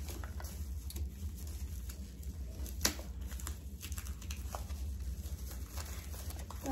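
Wrapping rustling and crinkling as a tightly wrapped item is worked open by hand, with scattered small clicks and a sharper one about three seconds in. A steady low hum runs underneath.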